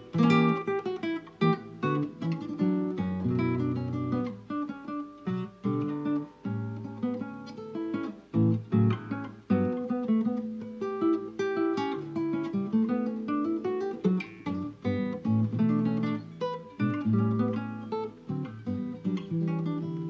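Background music on acoustic guitar, a steady run of plucked notes and strummed chords.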